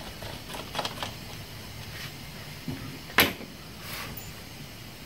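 Plastic air cleaner cover of an Echo HC150 hedge clipper being worked loose and pulled off the carburetor: a few light plastic clicks and knocks, the loudest a sharp click about three seconds in.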